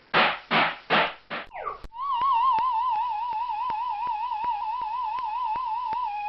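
Cartoon sound effect: a few quick whooshes and a downward swoop, then a long warbling electronic whirl with a wavering pitch, ticking about four times a second and gliding upward at the end.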